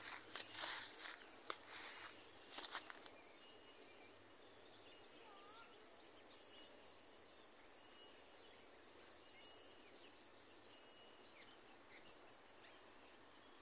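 Footsteps walking on grass for the first few seconds, then a steady high-pitched insect drone over tropical undergrowth, with a few short bird or insect chirps scattered through it.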